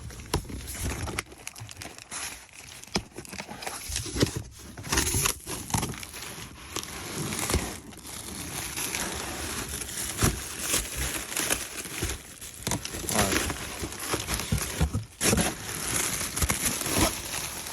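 Packaging crinkling and rustling, with scattered knocks and clicks, as a new replacement truck taillight is unpacked from its box.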